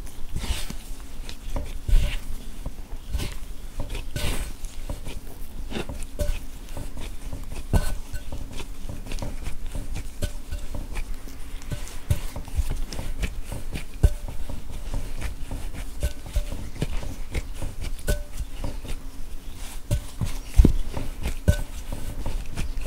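Brown bread dough being kneaded by gloved hands in a glass bowl while flour is worked in: a steady run of irregular soft pats, squishes and knocks of dough against the bowl.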